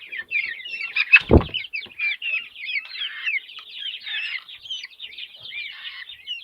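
A flock of chickens clucking and chattering in many short, overlapping calls. A single low thump sounds just over a second in.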